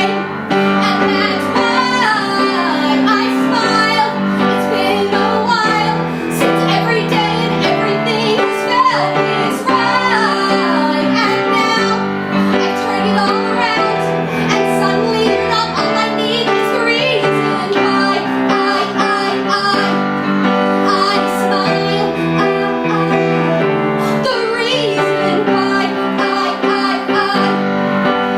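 A song with a woman singing over instrumental accompaniment that includes piano.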